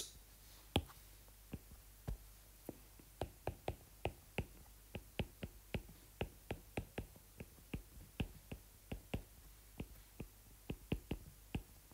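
Stylus tip tapping and sliding on a tablet's glass screen while handwriting letters and bond lines: a string of faint, irregular clicks, several a second.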